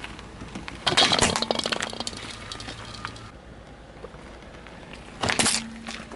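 A car tyre crushing small objects: a plastic toy globe cracks and breaks with a long burst of crackling about a second in, then a small foil pâté tin is crushed with a shorter burst about five seconds in.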